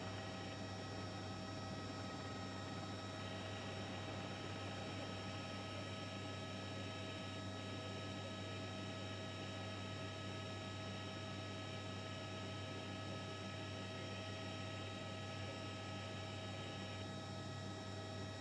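A steady low hum with an even hiss and a few faint, constant whining tones above it, unchanging throughout.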